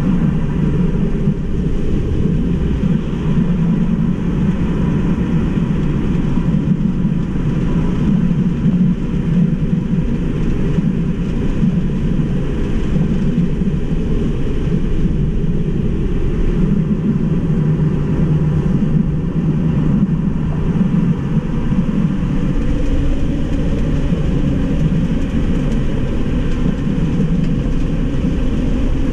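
Steady road and wind rumble heard inside the cabin of a Tesla Model 3 Mid Range RWD at track speed, with no engine note, mostly low in pitch, with a faint steady whine above it.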